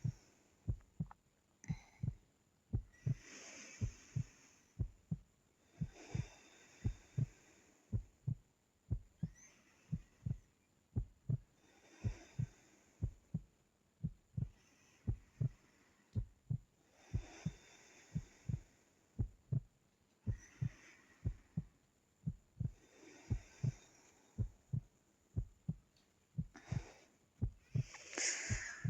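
A sleeping girl's breathing: soft, hissy breaths every two to three seconds over a steady run of low thumps, about two a second, like a heartbeat.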